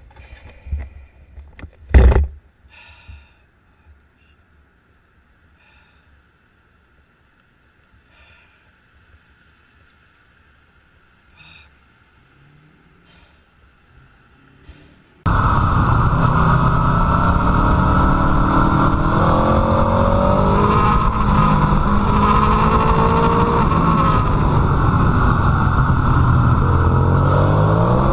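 A motorcycle engine heard from an onboard camera, running hard, its revs rising and falling through gear changes. It starts abruptly about halfway through. Before that there is one sharp knock a couple of seconds in, then near quiet.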